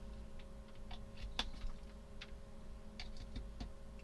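Light, irregularly spaced plastic clicks and taps, about a dozen, as a multimeter and its test leads are handled and connected, over a faint steady hum.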